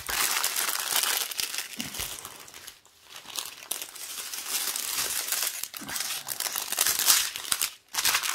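Small plastic bags of diamond-painting drills crinkling as they are handled, with short pauses about three seconds in and near the end.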